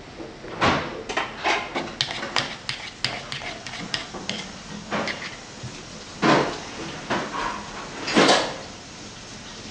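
Kitchen clatter of utensils and dishes: a string of short clinks and knocks, three of them louder and a little longer, about half a second in, past six seconds and past eight seconds.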